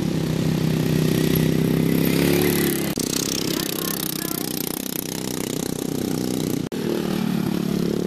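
Racing riding lawn mower engines running hard, their pitch rising and falling as the mowers drive the course. The sound drops out briefly near seven seconds in.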